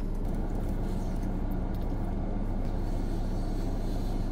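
A car's engine idling, heard from inside the cabin: a steady low hum that does not change.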